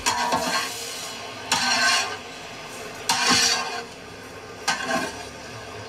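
A ladle scraping around a large metal cooking pot while a thick okra-and-egg fry is stirred, one short scrape roughly every second and a half.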